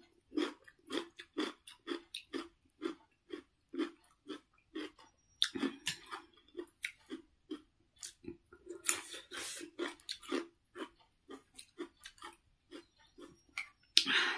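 Close-up chewing of crisp raw cucumber slices, about two crunchy chews a second, with a few louder, wetter stretches of mouth noise.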